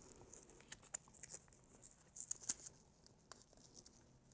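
Faint rustling and scattered small clicks of a bike top tube bag's Velcro strap and fabric being handled as the strap is wrapped around the frame's top tube, with a brief cluster of clicks about halfway through.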